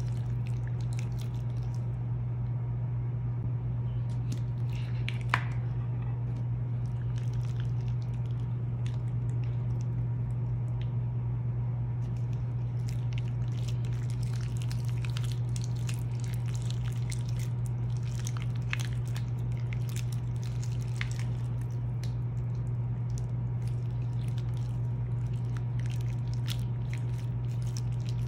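Purple slime being squeezed and kneaded by hand, making quick wet squishes and small clicking pops, denser in the second half, with one sharper snap about five seconds in. Under it runs a steady low hum.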